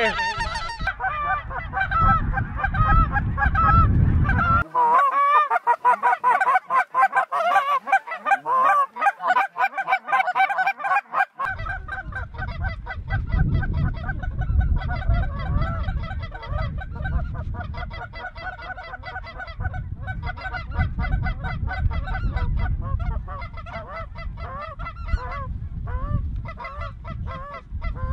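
A flock of geese calling overhead, a dense din of many overlapping honks and yelps. A low rumble of wind on the microphone runs under it, dropping out for several seconds in the first half.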